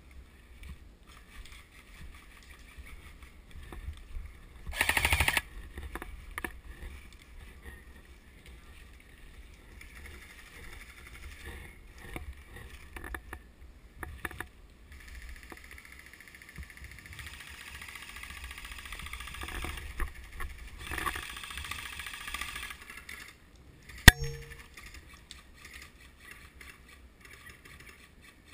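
An airsoft gun fires a short, rapid full-auto burst about five seconds in. Much later comes a single sharp crack, the loudest sound, over a low background hiss.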